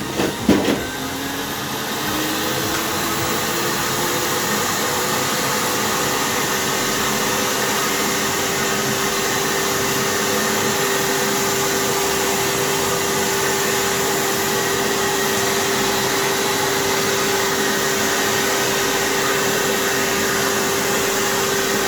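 Euroclean WD X2 wet-and-dry vacuum cleaner starting up after a knock about half a second in. Its motor whine rises in pitch over the first few seconds as it spins up, then it runs steadily with a loud rush of air.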